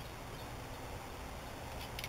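Steady outdoor background hiss and low rumble, with a couple of faint clicks near the end as fishing tackle is handled at a tackle box.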